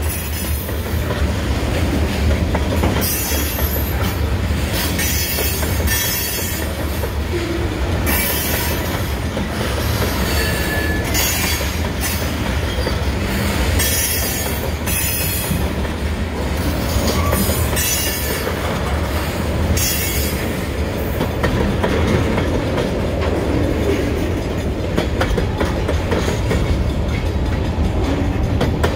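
Freight cars (covered hoppers, then coal gondolas) rolling past: a steady low rumble of steel wheels on rail, with bursts of high-pitched wheel squeal every second or two that fade out about twenty seconds in, and some clicking of wheels over rail joints.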